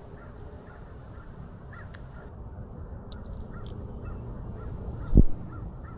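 Handling of a motorcycle phone-mount clamp: a few light clicks of small parts and one dull knock about five seconds in, over a low steady background rumble with faint bird calls.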